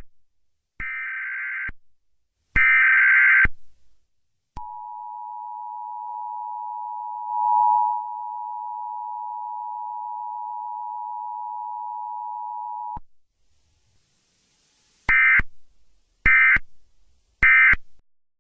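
Emergency Alert System test: the end of the raspy digital header, three squawks about a second each, then the two-note attention tone held steady for about eight seconds, then three short digital squawks marking the end of the message.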